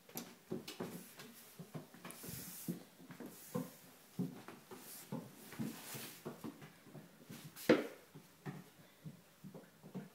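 Light, irregular footsteps and soft taps on wooden stair treads, with one sharper knock about eight seconds in and brief rustling hiss now and then.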